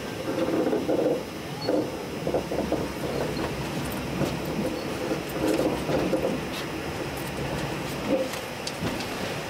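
Sleeper train carriage heard from inside as it rolls slowly into its terminal platform: a steady rumble with irregular clacks and knocks from the wheels over the rails, and a few short sharp ticks.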